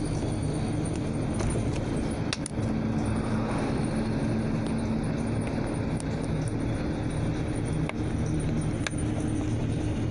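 Motorcycle engine running steadily while riding at a cruise, with wind and road rush, and a few sharp clicks.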